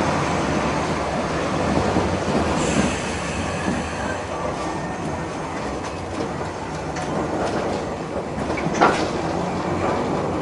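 Tosaden 600-type tram heard from inside the car while running: a steady rumble of wheels and running gear. A brief high wheel squeal comes about three seconds in, and a single sharp knock near the end.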